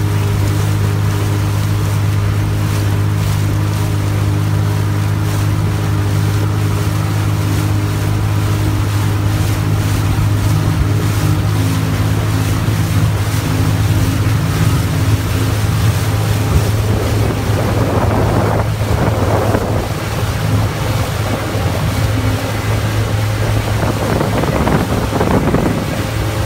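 Sea-Doo jet ski engines running steadily on open water, a continuous low drone, with wind on the microphone and water spray hissing off the hull. The spray swells twice, about two-thirds of the way through and again near the end.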